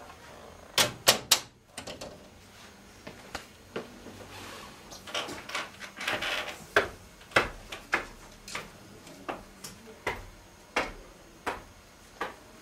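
A door latch and lock clicking three times in quick succession as a door is opened, followed by footsteps climbing wooden stairs, roughly two steps a second.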